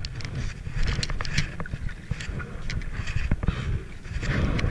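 Double-bladed kayak paddle strokes dipping into and splashing through the water, with scattered drips and light knocks, under a steady rumble of wind on the microphone.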